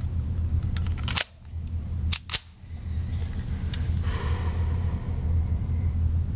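Three sharp gunshot cracks: one about a second in, then two in quick succession about a second later. Each briefly pulls the recording's level down, over a steady low hum.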